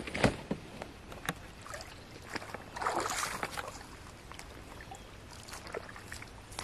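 Water sloshing and splashing around a man wading with a fishing rod, with a few sharp clicks near the start and a longer splash about three seconds in.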